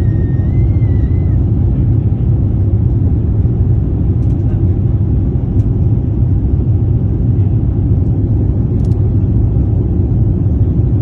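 Steady low rumble of an Airbus A350-900's Rolls-Royce Trent XWB engines and rushing air, heard inside the passenger cabin as the jet climbs out after take-off.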